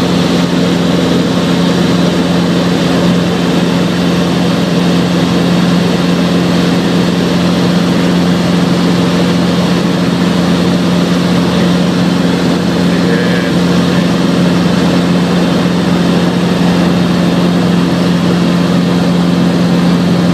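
Robinson R22 Beta II helicopter in flight, heard from inside the cabin: the Lycoming four-cylinder piston engine and rotors make a loud, steady drone with a strong low hum over dense noise.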